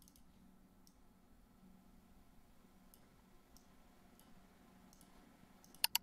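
Computer mouse clicks over near-silent room tone: a few faint, scattered clicks, then a louder, quick double click near the end.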